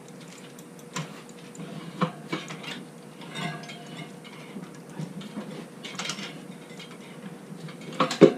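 Scattered metal clicks, knocks and scrapes from a Rabaconda tire-changing stand and its tools working a motorcycle tire's bead off the rim, with a sharper knock near the end.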